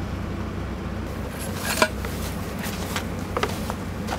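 Light metallic clicks and clinks of the release tool and hydraulic quick coupler being handled against the aluminium shore rail just after the coupler is disconnected, the sharpest click a little under two seconds in, over a steady low machine hum.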